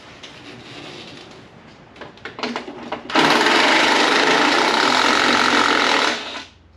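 A few light knocks, then a power tool with a 10 mm socket runs steadily for about three seconds, spinning out a rusted bolt, and stops suddenly.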